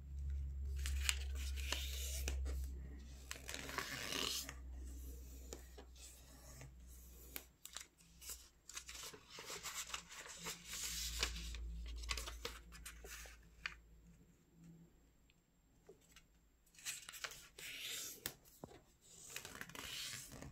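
Sheets of origami paper being folded and creased by hand on a plastic mat. The paper rustles and crinkles in several bouts, with small taps and quiet pauses between them.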